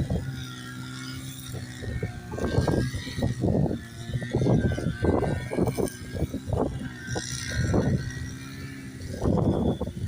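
A vehicle engine running steadily under a run of irregular knocks and thumps.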